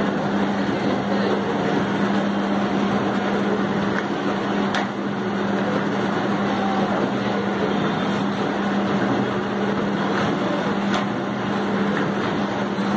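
Semi-automatic ROPP cap sealing machine running with a steady electric motor hum, its capping head spinning continuously, and a few light clicks as bottles are capped.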